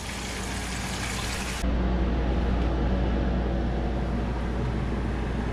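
Food sizzling as it fries. About a second and a half in, the sizzle cuts off abruptly and is replaced by a steady low rumble.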